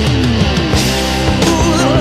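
1970s hard rock studio recording: distorted electric guitar playing sliding, bending notes over bass and drums.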